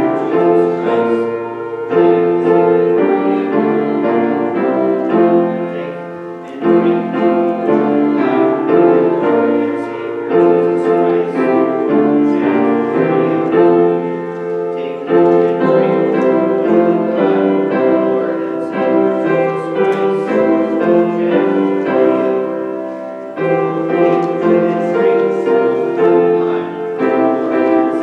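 Instrumental hymn played on a keyboard instrument in slow, held chords, phrase by phrase, with short breaks between phrases.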